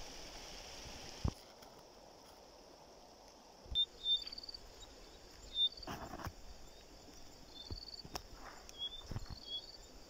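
Faint rush of a muddy river for about the first second. Then quieter outdoor ambience with rustling grass and handling knocks as the phone moves through vegetation, and several short high chirps.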